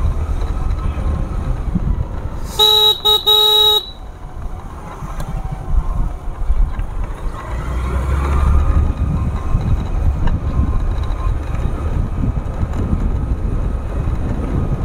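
Motorcycle horn beeped twice in quick succession about three seconds in, over the steady low rumble of the moving motorcycle and wind.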